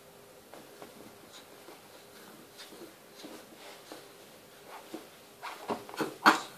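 A baby kicking and flailing on a padded changing mat: soft rustling and scuffing of arms and legs against the mat, with a few sharper knocks near the end, the last the loudest.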